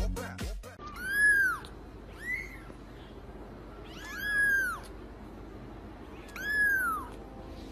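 A fluffy white kitten mewing four times, high-pitched meows that each rise and then fall in pitch, the second one shorter and fainter.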